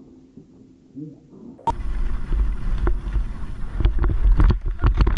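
Wind rushing over a skier's helmet-camera microphone on a downhill run: a loud, steady low rumble with scattered knocks, starting abruptly about a second and a half in after a quieter stretch.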